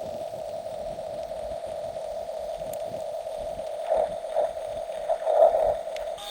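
1/16-scale RC bulldozer's electric drive running with a steady whine that holds one pitch, swelling louder a few times in the last two and a half seconds.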